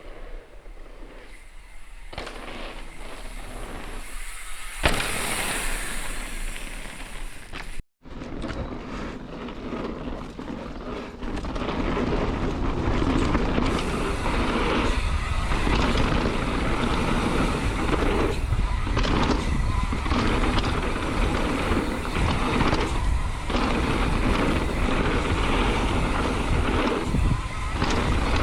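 Rushing noise of a downhill mountain bike being ridden on a trail: wind buffeting the microphone over a rumble of tyres and rattling bike parts. It is quieter at first, with a sharp click about five seconds in, and louder after a cut about eight seconds in.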